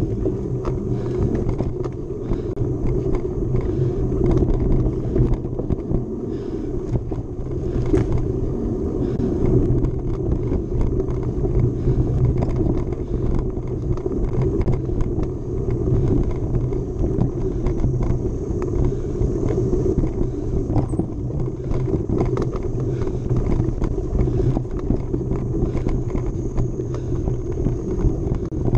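Mountain bike being ridden hard over a dirt trail: a steady low rumble of tyres and moving air, broken by frequent small knocks and rattles from the bike.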